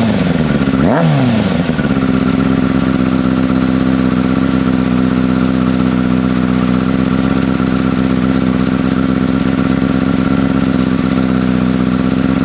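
2009 Kawasaki Ninja ZX-6R's inline-four engine, blipped once about a second in, its pitch rising and falling quickly, then settling into a steady idle.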